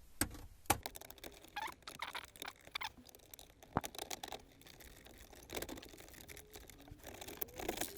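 A flat metal blade prying at the sides of a car radio to release its brackets. Light clicks and scrapes, one sharper click about four seconds in, and small squeaks near the end.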